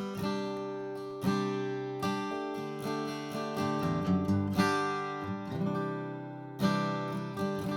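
Atkin The Nineteen (J19) mahogany acoustic guitar with a baked Sitka spruce top, strummed with a pick: chords ring out and sustain between strokes, with strong strums about a second in, at two seconds, midway and near the end, and lighter picked strokes between.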